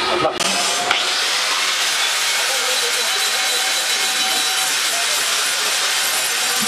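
Handheld electric angle grinder with a flap disc grinding a steel bar held in a vise: a steady hissing grind. It starts after a brief break and a sharp click about a second in.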